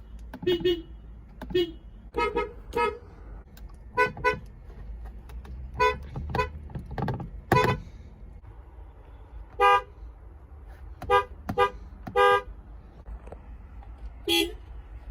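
Car horns giving a series of short toots, several in quick pairs, spaced a second or two apart.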